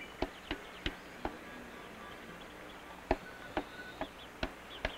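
Knife blades chopping plant stems against a wooden log: irregular sharp knocks, two or three a second, with faint high chirping calls behind.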